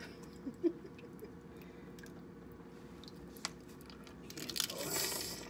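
Someone eating crab legs: a few small clicks and chewing, then about a second of crackling near the end, as of crab shell being broken. A faint steady hum runs underneath.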